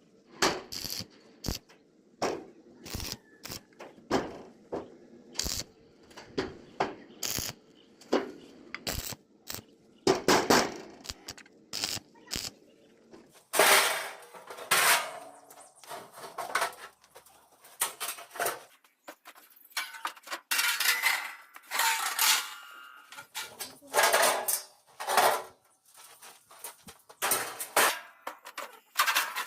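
Irregular metallic clanks and knocks of steel pieces and tools being handled in metalwork, light clicks at first, then louder, ringing clangs from about halfway.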